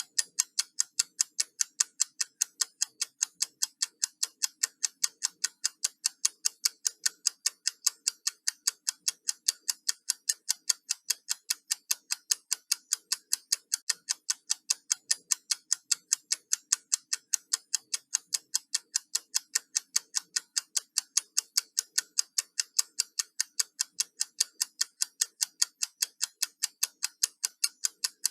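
Countdown timer ticking like a clock: a fast, even run of crisp, high ticks.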